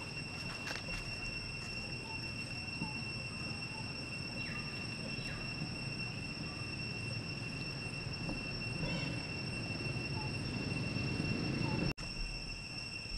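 Steady, high-pitched insect drone that holds one pitch throughout, with a few faint short chirps and a low rumble beneath. The sound cuts out for a moment near the end.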